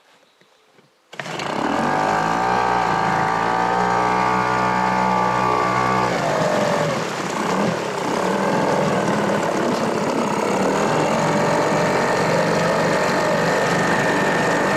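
Yamabisi 2.6 hp two-stroke outboard motor running under throttle on an inflatable boat, with water rushing and spraying in its wake. The engine sound cuts in abruptly about a second in, its pitch shifts around six seconds in, and then it runs steadily. The motor is new and being run in.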